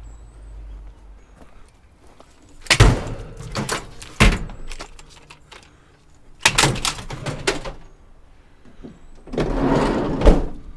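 Scrap metal being handled and loaded: three bursts of loud clanks and thuds with short metallic ringing, the last ending in a sharp clang near the end.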